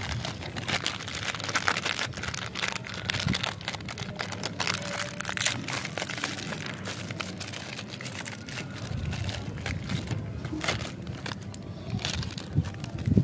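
Plastic and foil candy wrappers crinkling in a run of irregular crackles as they are handled and opened by hand.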